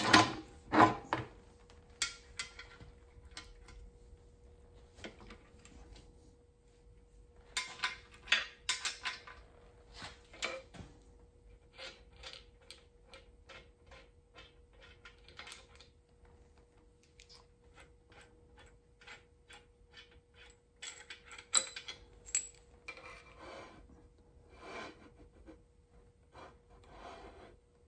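Metal adapter plate of a Kwik-Way portable valve seat cutter being slid and repositioned on a Model A Ford's cast-iron engine block: clusters of metal clinks, knocks and scraping with quiet gaps between them. A faint steady hum runs underneath.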